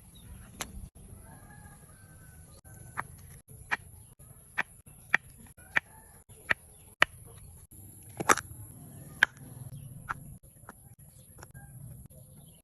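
A run of sharp taps or knocks, roughly one or two a second, with a louder one about two thirds of the way through. Faint clucking of chickens sounds behind them.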